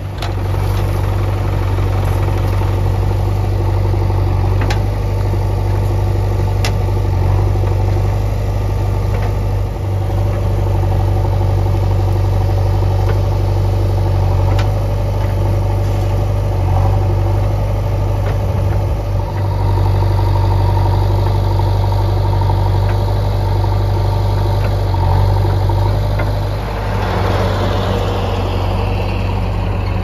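Diesel engines of a JCB backhoe loader and farm tractors running steadily at idle, with a few scattered sharp knocks. About 27 seconds in, one engine revs up.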